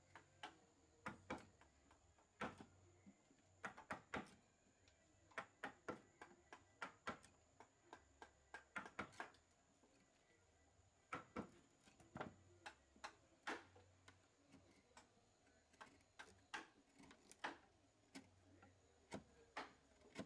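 Wood-carving chisel struck with a mallet, cutting into solid wood: a string of short, sharp knocks, uneven in spacing, about one or two a second and sometimes in quick pairs.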